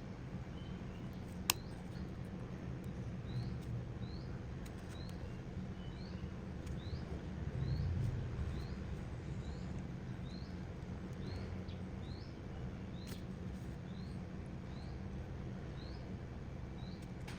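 A bird chirping over and over in short rising notes, about one or two a second, over a steady low hum. A single sharp click comes about a second and a half in.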